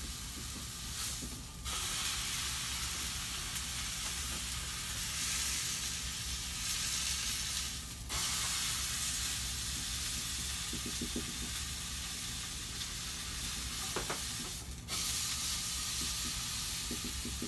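Beef roast searing in a hot frying pan: a steady sizzle that breaks off briefly three times, with a low steady hum underneath.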